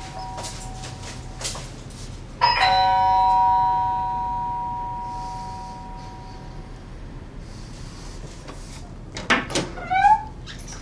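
Two-note electronic door chime rings about two and a half seconds in and dies away slowly over several seconds. Near the end come a few clicks and short squeaks as the front door's lock and handle are worked.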